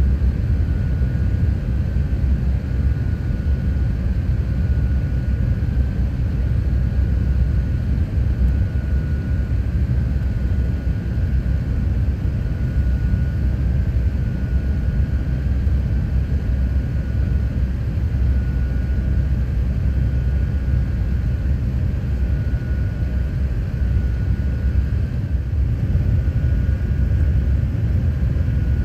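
Airliner cabin noise during the descent: a steady low rumble of engines and airflow, with a thin high tone that comes and goes.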